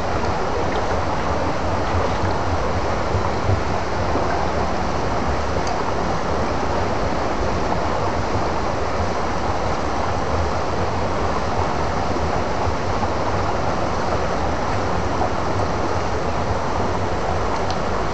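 Steady rushing noise of flowing stream water, with a strong low rumble underneath and no breaks.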